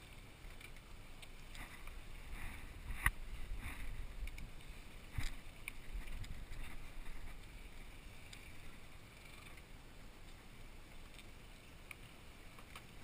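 Steady low rumble and water wash of a sportfishing boat moving slowly during a fish fight, with two sharp knocks about three and five seconds in.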